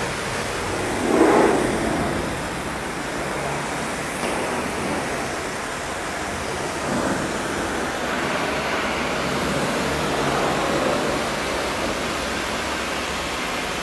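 High-pressure washer jet spraying water onto an auto rickshaw's wheel and underbody: a steady hiss of spray, with a louder swell about a second in.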